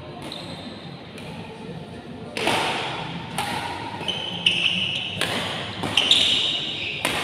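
Badminton doubles rally: racket strings hitting a shuttlecock in a quick exchange, about one sharp hit a second, louder from about halfway through.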